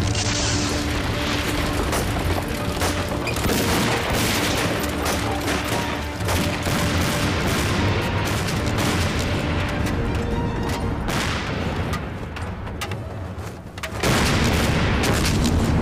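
Film battle sound effects: an explosion, then dense volleys of gunfire and further blasts over dramatic background music. The din eases briefly and comes back loud about two seconds before the end.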